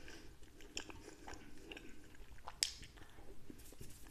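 A person chewing a mouthful of soft pandoro, with small wet mouth clicks and one sharper click about two and a half seconds in.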